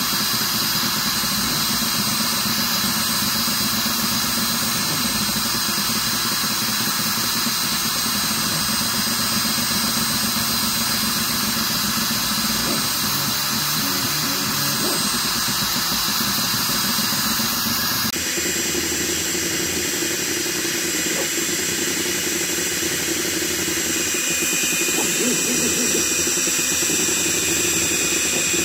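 A CNC machine fitted with a diode laser head, running while it engraves wood: a steady whir and hiss with high, thin whining tones. The sound changes abruptly about eighteen seconds in.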